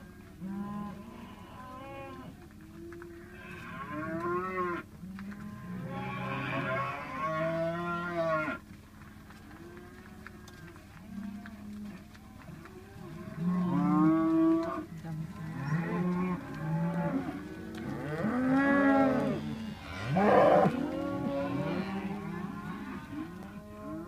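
A herd of black beef cattle mooing, many calls overlapping one another without a break, with a few louder, longer calls in the second half.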